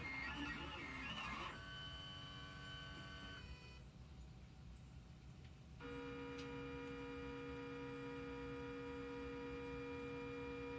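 Stepper motors of a Lowrider CNC whining as the machine moves, holding steady pitches that change a couple of times in the first few seconds. They go quieter for about two seconds, then settle into one steady whine from about six seconds in.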